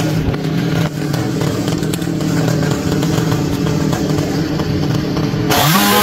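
Chainsaw engine running at a steady high pitch while cutting a branch. Near the end the sound brightens and the pitch wavers as the saw revs.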